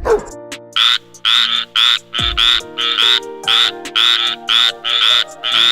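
An animal calling in a quick, even series of short croaking calls, about two to three a second, over background music with steady held notes.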